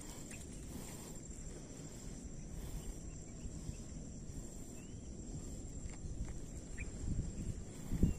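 Riverside ambience: a steady high-pitched insect drone over a low, uneven rumble, with a few faint chirps. A few louder low bumps come near the end.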